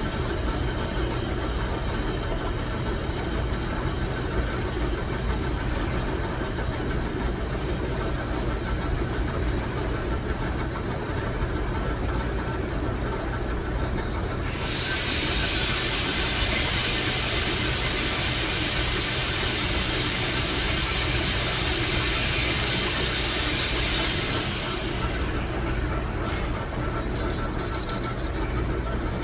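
Metal lathe running with a steady low machine hum. About halfway in a loud hiss starts suddenly, lasts about ten seconds, then stops.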